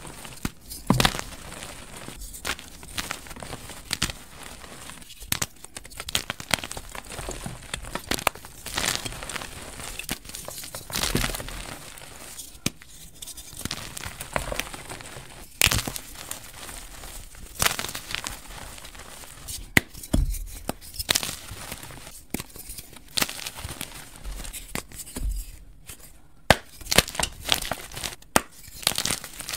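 Hands crushing and crumbling blocks of dyed gym chalk into powder: a gritty crumbling hiss broken by irregular sharp crunches and snaps as pieces break apart.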